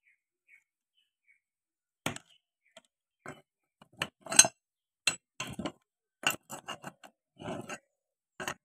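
Steel spanner clinking against the hub nut of a tractor's front wheel as the nut is worked loose: a run of short, sharp metallic clinks and knocks, starting about two seconds in.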